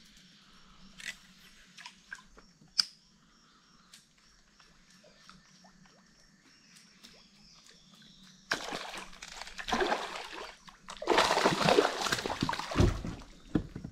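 A small hooked traíra thrashing and splashing at the water's surface as it is reeled in. The splashing starts suddenly about eight seconds in and is loudest near the end.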